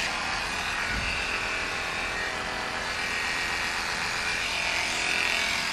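Electric dog grooming clippers running with a steady buzz, the blade just oiled after dog hair caught between the blades.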